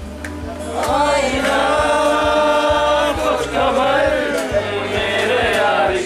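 Singing to an acoustic guitar, the voices starting about a second in and holding long, drawn-out notes.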